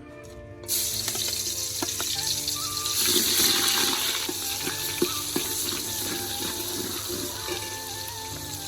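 Sudden loud sizzling from a hot pan of oil, starting about a second in, with scattered crackling pops, easing off a little toward the end.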